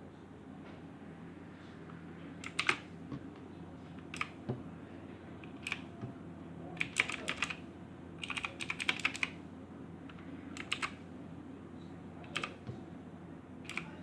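Keys pressed on a Motospeed Inflictor mechanical keyboard: scattered single clicks and two short runs of quick keystrokes in the middle.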